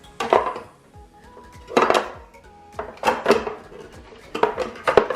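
Toiletry bottles and small containers clattering in four short bursts as they are handled and set into a bathroom drawer, over soft background music.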